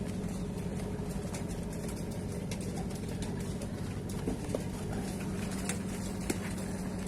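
A steady low hum, like a motor running, with scattered small clicks and ticks over it.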